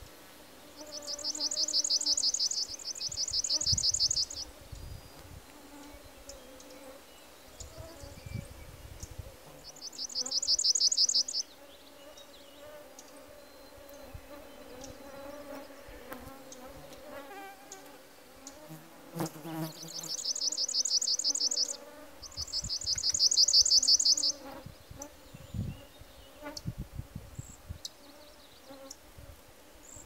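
Western palm warbler singing a rapid trill of repeated notes five times, a few seconds apart, over the steady wavering whine of mosquitoes swarming around the microphone.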